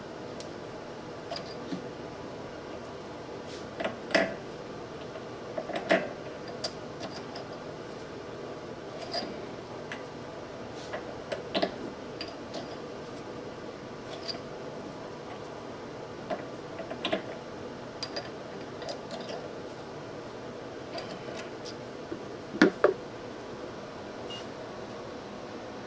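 Metal parts and tools handled during lathe chuck setup: scattered light metallic clinks and knocks, irregular and a few seconds apart, the loudest a quick pair near the end, over a steady background hiss.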